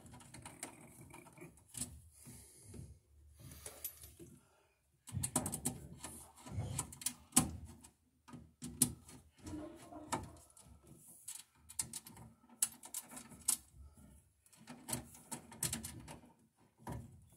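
Hands working 10-3 Romex cable up into a metal breaker panel: irregular clicks, scrapes and rustles of the cable and wires against the metal box.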